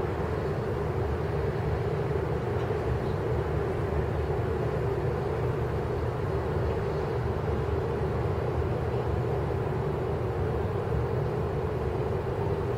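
Steady, unchanging low rumble with a hum.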